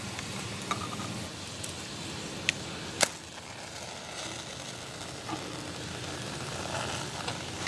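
A few light clicks, then one sharp scratch about three seconds in as a SweetFire strikeable tinder stick is struck and flares alight, followed by the faint steady hiss of it burning.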